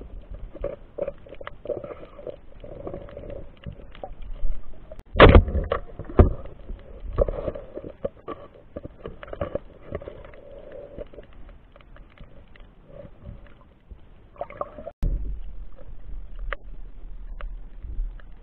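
Muffled underwater sound from a submerged camera: a steady scatter of small clicks and crackles, with a loud knock about five seconds in and a second one a second later.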